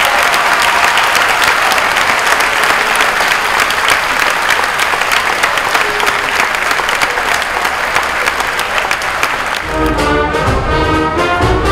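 A large crowd applauding, dense steady clapping for nearly ten seconds. Near the end the clapping gives way to orchestral music with brass.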